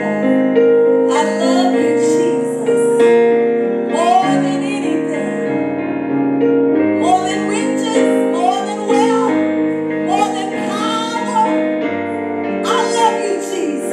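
Gospel worship music: a keyboard holding long chords while a singer comes in with short phrases every few seconds.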